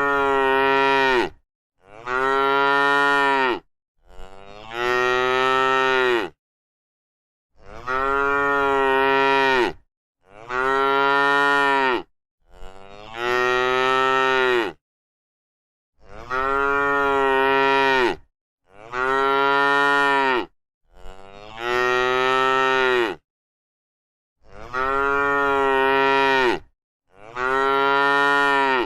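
A cow mooing over and over, about eleven drawn-out moos each lasting about two seconds, with short gaps of dead silence between them.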